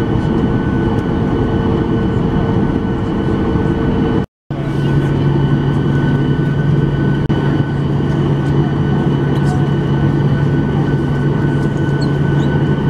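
Cabin noise inside a Boeing 737-900ER taxiing to the gate: a steady rush from its CFM56 engines at taxi idle, with steady hums. The sound cuts out for a moment about four seconds in, and after that a strong low hum runs under the rush.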